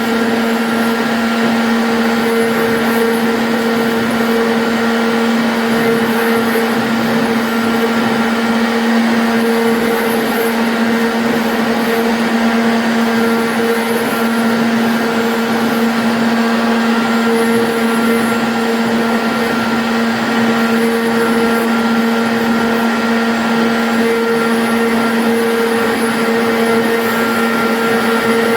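CNC router spindle running at a steady high speed with a constant whine, its bit cutting through the sheet material with a continuous hiss.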